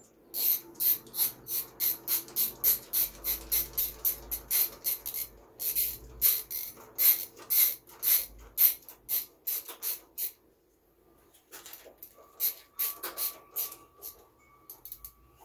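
Ratchet wrench clicking in quick, even runs of about four clicks a second as a bolt at a dirt bike's silencer mount is turned. About ten seconds in it pauses, then a few sparser clicks follow.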